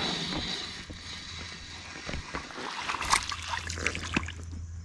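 Fishing from a kayak with a baitcasting rod and reel: a hiss fades out in the first half second, then scattered small ticks and a cluster of sharp clicks about three seconds in, with light water sounds.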